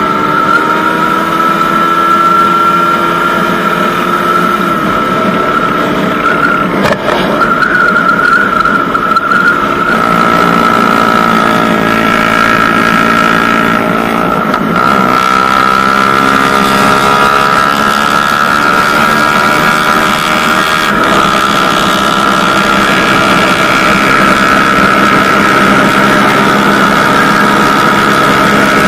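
Suzuki Satria FU motorcycle engine running under way at road speed, with a steady high whine over it. The engine note drops about five seconds in and again around the middle, then climbs as the bike speeds up.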